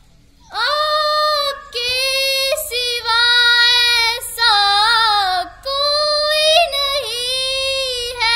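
A girl singing alone, without accompaniment, into a microphone: a devotional Urdu naat in long held phrases with short breaks between them, the held notes wavering.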